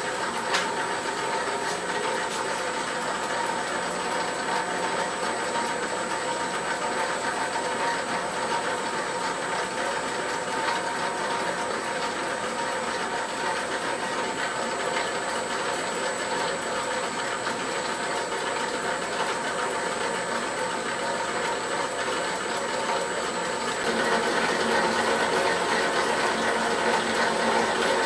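Famag Grilletta IM 5 S single-phase spiral dough mixer running, its spiral hook and bowl turning and kneading dough with a steady whirring gear drive. There is a single click just after the start, and about 24 seconds in the sound steps up, louder and brighter.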